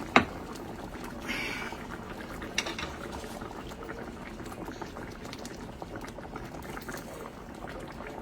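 Beef-broth and heavy-cream gravy bubbling and sputtering steadily in a skillet on high-ish heat. There is a sharp clink of a utensil or dish just after the start and a short hiss about a second in.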